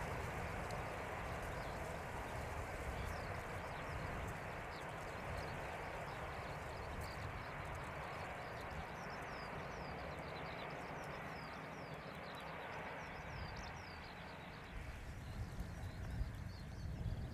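Steady outdoor airfield background noise with low wind rumble on the microphone. From a few seconds in, small birds chirp over it again and again in short falling notes.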